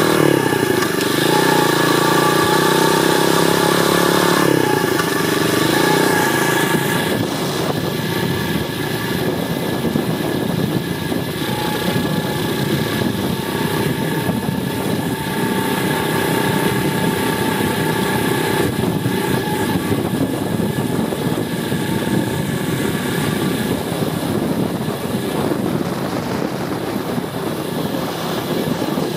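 Apollo 125cc pit bike's single-cylinder four-stroke engine running under way; its revs dip and climb back near the start and again about five seconds in, then it runs steadier and a little quieter.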